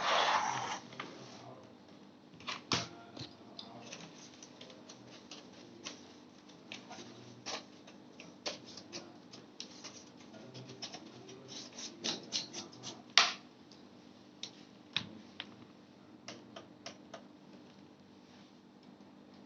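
Irregular light clicks and taps of small hard parts being handled, with a short rustle at the start and one sharper click about two-thirds of the way through.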